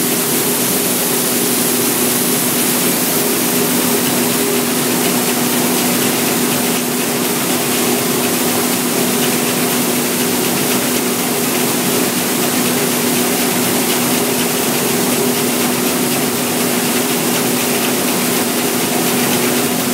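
Coffee processing machine running steadily: an even mechanical noise with a constant motor hum underneath.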